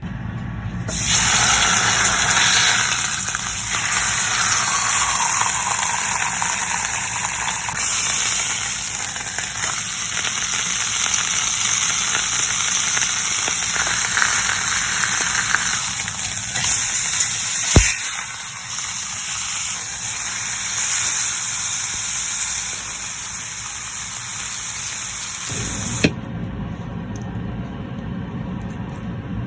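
A thick beef steak sizzling hard in a hot cast-iron Dutch oven, a steady loud hiss. There is one sharp knock about two-thirds of the way in, and the sizzle cuts off sharply near the end.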